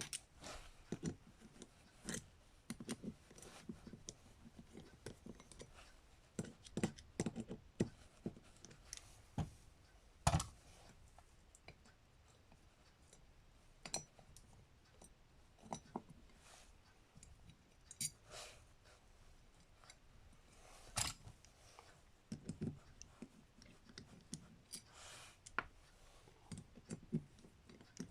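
Small metal parts of a Mikuni carburetor being handled during disassembly: scattered light clicks and taps, with a sharper knock about ten seconds in and another about twenty-one seconds in.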